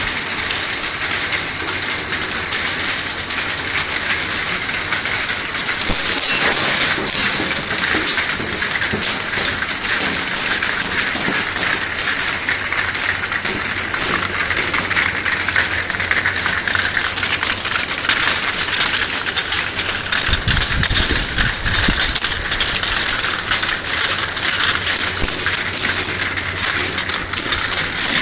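External vial washing machine running: 50 ml vials clinking rapidly and continuously as they pass through, over a steady spray hiss.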